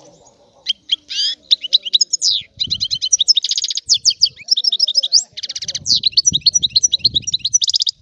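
European goldfinch singing a long, fast run of twittering trills and buzzy notes, starting about a second in and stopping just before the end.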